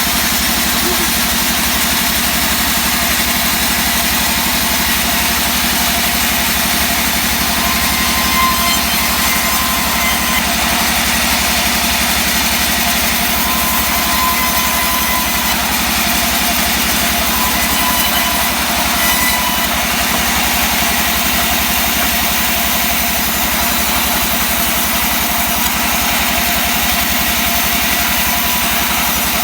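Engine-driven saw running steadily, sawing mahogany wood.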